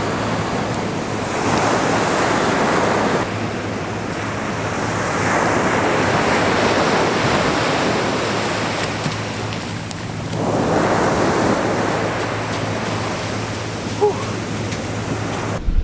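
Ocean surf breaking and washing up the beach, rising and falling in three surges about four seconds apart.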